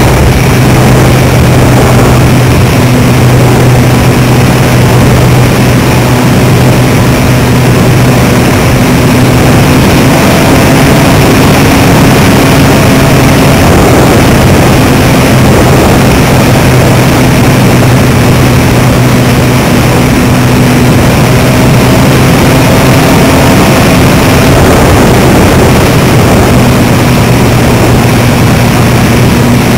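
RC airplane's motor and propeller heard up close from a camera mounted on the plane, running at steady high throttle: a loud, even drone with a rushing noise over it.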